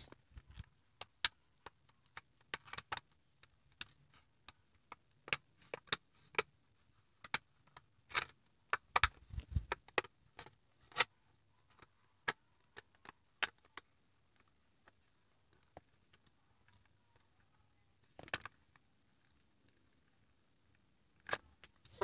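Scissors snipping through a toy car's cardboard-and-plastic blister package: many short, sharp, irregular clicks and snips, dense at first and thinning out after about fourteen seconds, with a low handling bump around nine seconds in.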